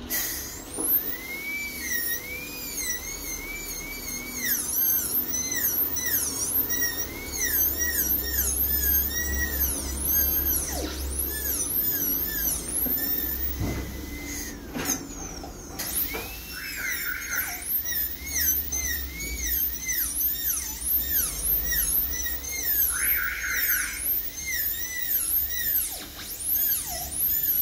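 Dental handpiece with a round bur whining as it cuts away caries near the gumline of a plastic model tooth, its pitch rising and falling over and over as the bur is pressed on and eased off.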